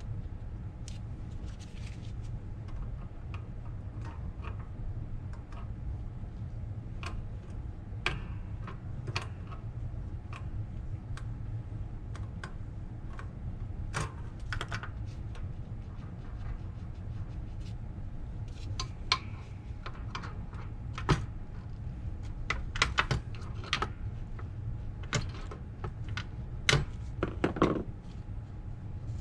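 Scattered light metallic clicks, taps and clinks of hand tools such as side cutters working on a Rolls-Royce Phantom III front brake backing plate assembly to pull out a pin and its retainer, busier and louder in the second half, over a steady low hum.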